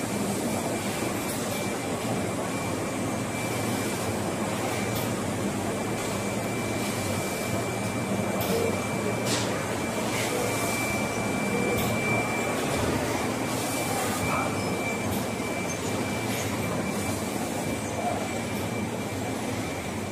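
Steady hum and whir of battery pack assembly line machinery, with a thin, steady high-pitched whine over it and a few faint clicks.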